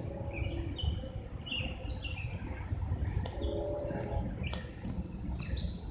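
Songbirds chirping: a run of short, high notes that step up and down in pitch, over a low, steady rumble.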